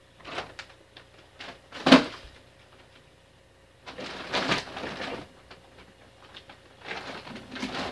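Things being handled and put away on a shelf: a few short knocks, the loudest a sharp knock about two seconds in, then rustling as items are moved about by hand.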